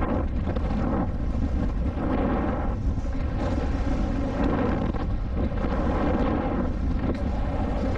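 Wind rushing over the microphone and knobby tyres rolling on a dirt trail as a mountain bike rides at speed, a steady loud rumble.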